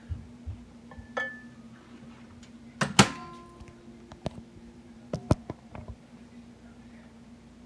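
A handful of sharp knocks and clatters, a few of them ringing on briefly; the loudest comes about three seconds in, with a pair close together a couple of seconds later.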